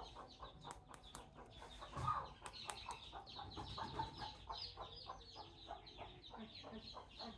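Chickens clucking and chirping faintly, many short calls in quick succession, with a few light clicks and a soft thump about two seconds in.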